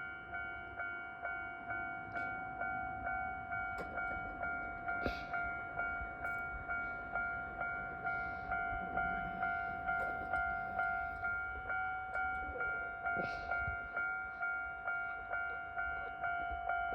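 Railway level crossing warning bell ringing steadily, about two strikes a second, each ringing tone fading before the next.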